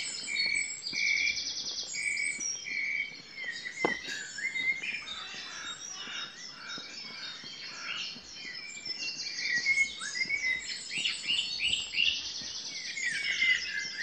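Dawn chorus: many songbirds singing at once, their songs and trills overlapping, with one bird repeating a short note about five times in the first few seconds.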